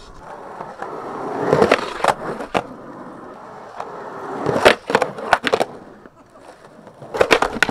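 Skateboard wheels rolling on rough asphalt, broken by three clusters of sharp clacks as the board's tail pops and the board slaps back down on landing.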